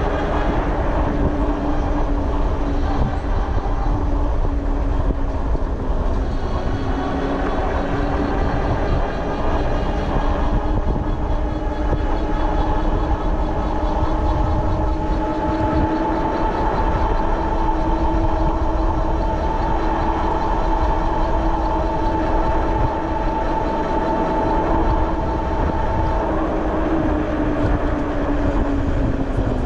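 Electric bike hub motor whining steadily while riding, its pitch drifting slowly and dropping near the end, over a heavy low rumble of wind on the microphone.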